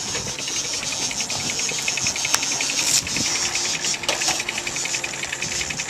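Boat outboard motor running at low throttle under a haze of wind and water noise, with a fast, even ticking through most of it.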